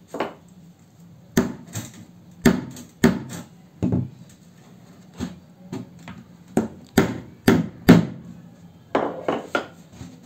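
Screwdriver jabbed into a hollow plastic jerrycan, punching holes: an uneven string of sharp knocks, about one or two a second.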